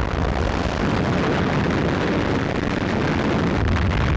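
Depth charges exploding at sea, heard on an old 1940s newsreel soundtrack as a continuous heavy rumble with no separate distinct blasts.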